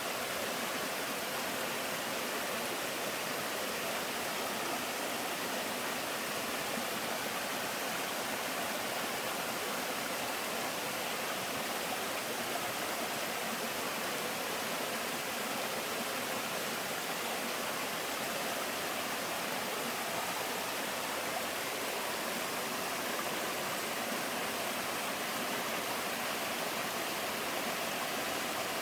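Water of a mountain-valley sliding waterfall pouring over sloping rock: a steady, even rush that never lets up.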